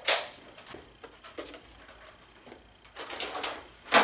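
A few sharp clicks and knocks: the loudest right at the start, a short run of smaller clicks about three seconds in, and another sharp knock at the very end.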